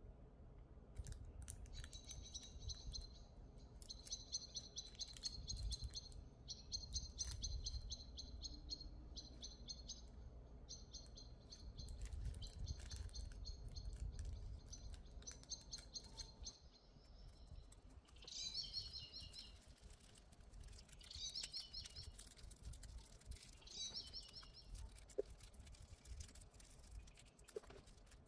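Birds chirping in the background: a rapid high trill repeated in short bursts through the first half, then separate chirps in the second half. Faint crinkles and ticks from nail transfer foil being pressed and rubbed onto a nail tip with gloved fingers.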